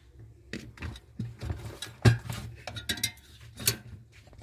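Scattered light clicks and metallic clinks from parts and tools being handled and set in place. The loudest knock comes about two seconds in and another near the end, over a faint steady low hum.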